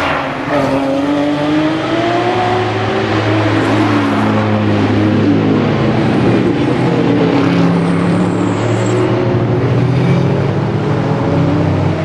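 A stream of GT race cars passing one after another, several engines overlapping, their notes sliding down and rising again as they brake and accelerate through the bend.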